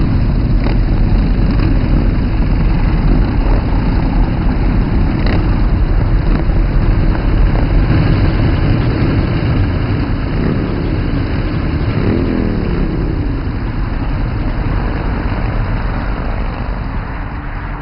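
Loud, steady motor vehicle engine noise, its pitch rising and falling a few times about ten to thirteen seconds in.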